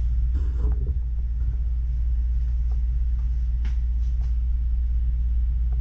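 Steady low rumble with a few faint knocks and clicks over it, as of a wheel or tire being handled.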